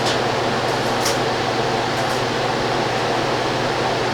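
Electric heat gun running: a steady blowing noise with a low motor hum, and a few faint ticks over it.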